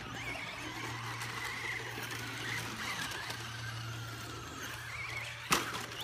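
Radio-controlled cars racing on a dirt track: a thin, wavering high motor whine over a steady hiss of tyres on dirt. Near the end comes one sharp knock.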